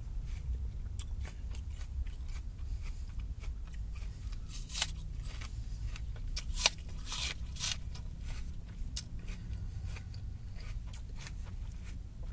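A person biting into and chewing a crisp raw apple: a string of wet, crisp crunches, the loudest bites about five and seven seconds in, over a steady low background rumble.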